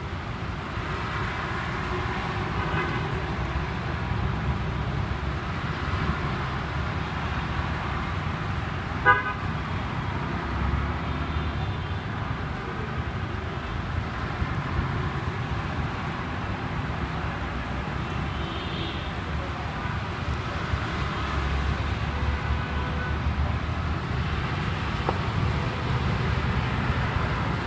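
Wet-street city traffic: a steady rumble of engines and tyres with car horns tooting now and then. A single sharp click about nine seconds in.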